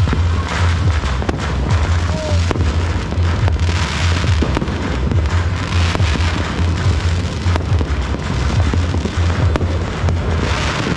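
Fireworks and firecrackers going off all around: a dense, continuous crackle of pops and bangs, over a steady low hum.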